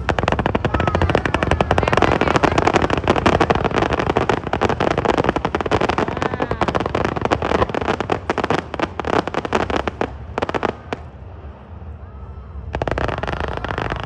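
Fireworks going off in a rapid, dense barrage of crackling bangs, many a second, thinning to a few scattered cracks about ten seconds in and dying away. A steady rush of noise sets in near the end.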